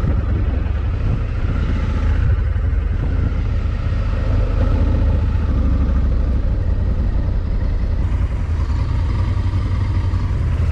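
Motorcycle running on the road, a steady loud ride noise made mostly of a deep rumble.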